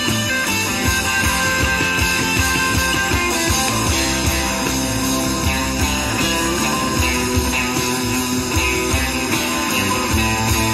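Live band playing an instrumental passage of a folk-rock song: strummed acoustic guitars and electric guitar over bass and a steady drum beat.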